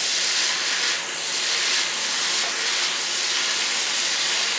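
Vegetables stir-frying in a hot wok: a steady sizzle that swells slightly about once a second.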